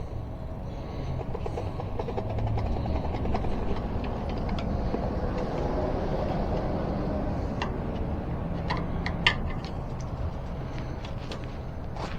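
Tire levers and rubber tire bead scraping and clicking against a bicycle rim as a tight dual sport tire is forced on, over a steady low rumble, with one sharp click about nine seconds in.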